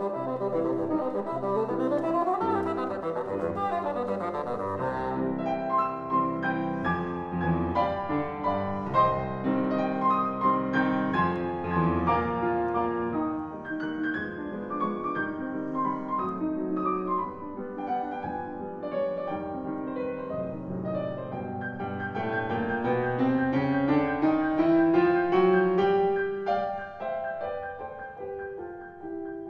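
Bassoon and grand piano playing a classical divertimento on opera themes. The bassoon drops out for part of the middle while the piano plays on, and near the end a line climbs steadily in pitch.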